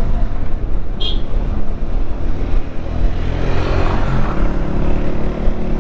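Benelli TRK 502X motorcycle's parallel-twin engine running steadily while riding, mixed with road noise.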